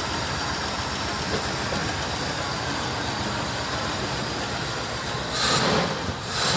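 1975 Chevrolet Impala's V8 engine running steadily after being brought back to life, a continuous rushing mechanical noise that swells louder briefly about five and a half seconds in.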